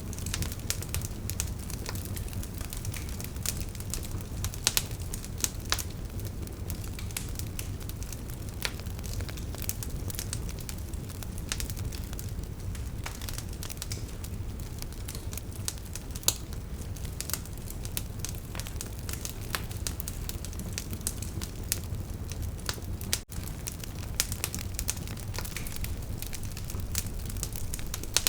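Wood fire burning in a fireplace: a steady low rumble of flames with frequent sharp crackles and pops from the logs. The sound drops out for a split second about three quarters of the way through.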